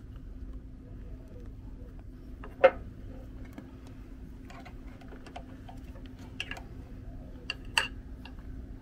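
Small clicks and taps of needle-nose pliers and rubber terminal boots being worked over the metal terminal bolts of a winch motor. There is one sharp click about two and a half seconds in and a few more near the end, over a faint steady hum.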